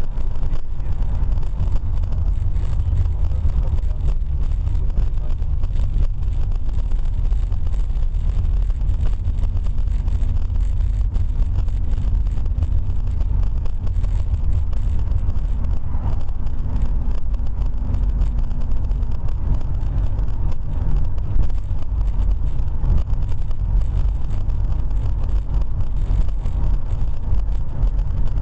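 Steady low rumble of a car's engine and tyres on the road, heard from inside the cabin while driving at a steady pace. A faint steady drone joins in for about ten seconds in the middle.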